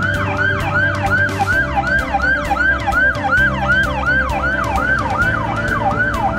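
Electronic emergency siren on a fire department paramedic rescue truck in fast yelp mode: a rapid rise-and-fall wail repeating about three times a second. Background music plays underneath.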